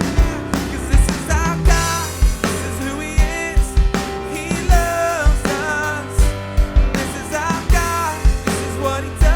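Live worship band playing an instrumental passage: a drum kit with a kick drum beating about twice a second under sustained piano chords, and a gliding melody line on top.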